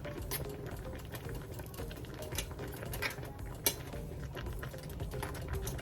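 Pot of seafood okra soup simmering: irregular small pops and clicks over a steady low rumble, with one sharper click a little past halfway.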